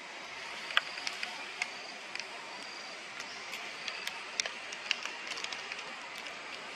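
Outdoor forest ambience: a steady high hiss with scattered sharp clicks and ticks. One louder click comes about three quarters of a second in.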